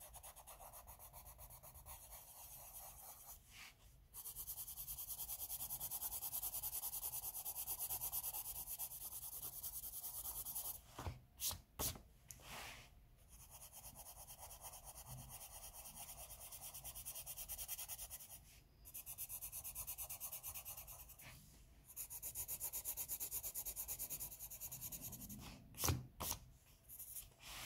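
Derwent blender pencil rubbing over layers of Colorsoft coloured pencil on paper in quick back-and-forth strokes, in several stretches with short pauses. A few sharp taps near the middle and near the end.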